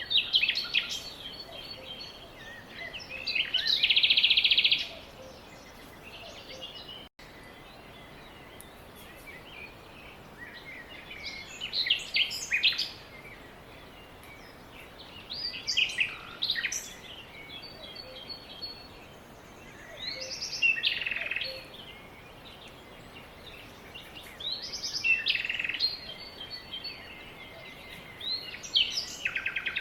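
Songbird singing short chirping phrases every few seconds over a steady background hiss, the loudest phrase a buzzy trill about four seconds in.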